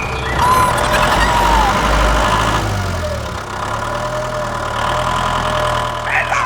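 Truck engine idling steadily with a low hum, with several chirping bird calls over it.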